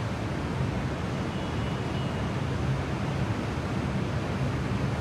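Steady background hum and hiss with a low drone and no sudden sounds.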